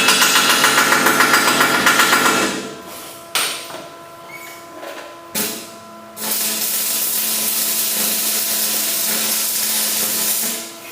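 Stick-welding arc with 6011 rods, crackling and hissing in two runs: the first stops about two and a half seconds in, a few clicks follow, and the second starts about six seconds in and stops near the end.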